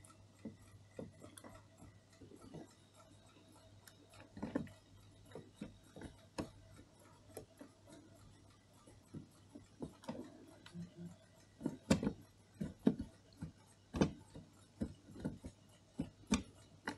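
Faint, irregular metallic clicks and taps as a small tubular tool and fingers work the brass plates and parts of a chiming clock movement, with a few sharper knocks in the second half, over a faint steady hum.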